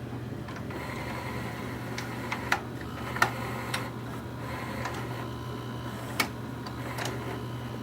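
The VHS tape mechanism of a Magnavox ZV450MW8 VCR/DVD combo running: a steady motor hum with scattered clicks and ticks from its gears, about three of them sharper than the rest.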